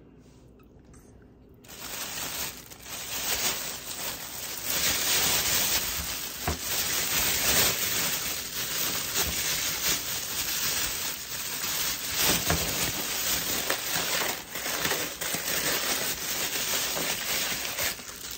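Crinkling and rustling of packaging being handled, with many small clicks, starting about two seconds in.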